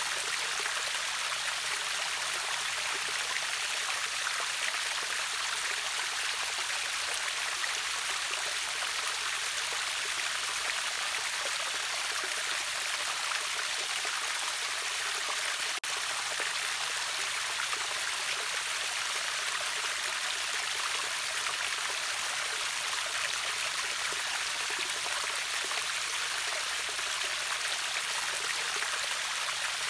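Steady rushing of water from a river waterfall: an even, hissy wash, strongest in the upper range, with a split-second dropout about halfway through.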